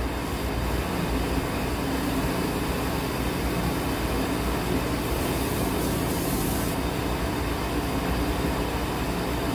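Steady low roar of commercial gas-range burners running at high flame, heating a pot of boiling water and a wok, with a brief high hiss about five seconds in.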